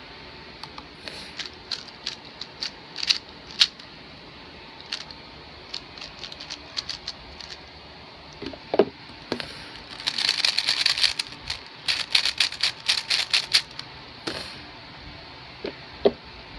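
3x3 speed cube being turned by hand: scattered clicks of its layers, then a dense run of rapid clicking about two-thirds of the way through, as the cube is scrambled. A few soft knocks as it is handled.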